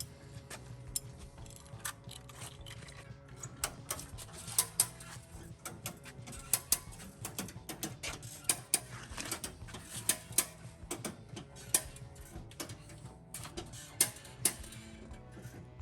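Hand tools working on a car's sheet-metal fender: irregular sharp metallic clicks and taps, some much louder than others, over a steady low hum.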